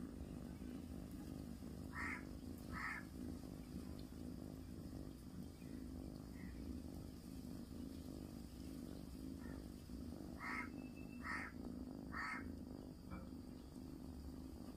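Short animal calls: two about two seconds in, then three more close together around ten to twelve seconds, over a steady low hum.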